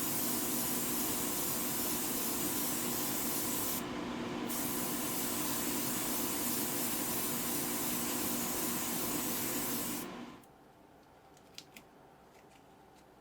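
Hobby airbrush spraying paint in a steady hiss of air, with a steady low hum underneath. The hiss thins briefly about four seconds in and stops about ten seconds in, followed by a couple of faint clicks.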